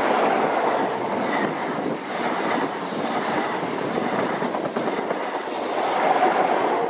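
Network Rail's yellow High Speed Train measurement set passing close by at speed: a steady rush of wheels on rail and coaches, getting louder about six seconds in as the rear Class 43 power car goes by.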